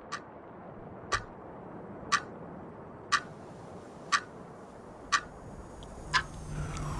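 Clock ticking once a second, seven sharp ticks. Near the end a low hum and a falling, sweeping tone come in.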